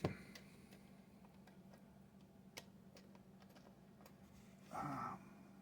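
Faint clicks and light taps as small fare-box parts are handled, with a short, louder rubbing sound about five seconds in, over a steady low hum.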